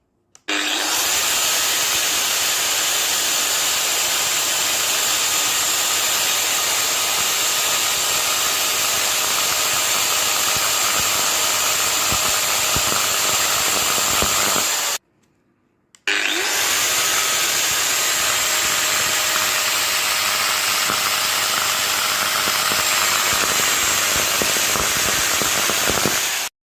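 Electric angle grinder running at full speed with no load: it spins up with a short rising whine, then runs with a steady high whine. It stops suddenly, starts again a second later and runs on. The grinder has a faulty armature that sparks.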